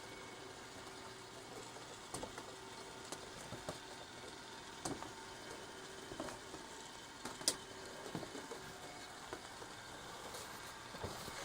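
Faint scattered clicks and taps of small objects being handled, the sharpest about two-thirds of the way through, over a low steady hum.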